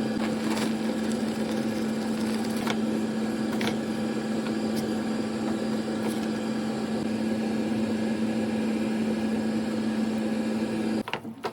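A steady machine hum with one strong low tone, with a few faint clicks over it, cutting off suddenly near the end.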